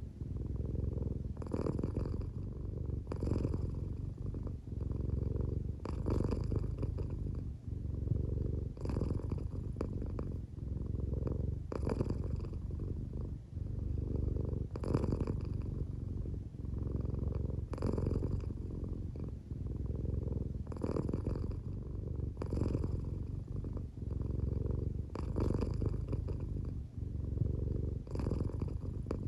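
An American Shorthair cat purring continuously, a low rumble that swells and eases with each breath. The cat is drowsy and close to sleep, and the purr may be partly snoring.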